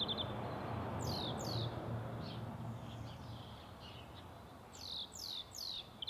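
European greenfinch singing: a fast trill just at the start, then quick falling whistled notes in twos and threes, about a second in and again near the end. A low steady background rumble runs under it.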